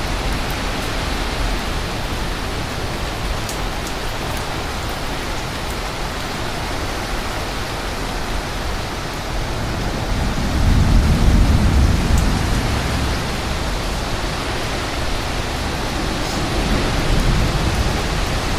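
Steady hiss of heavy rain and strong wind in a severe thunderstorm, with a deep rumble that swells about ten seconds in and fades a few seconds later.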